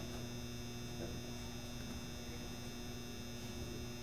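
Steady low electrical mains hum with faint background room noise.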